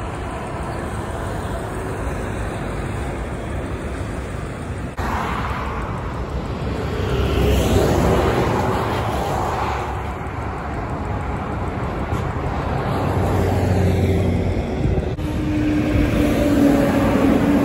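Heavy trucks driving past on a road: diesel engine rumble and tyre noise, swelling as one passes about eight seconds in. The sound changes abruptly twice.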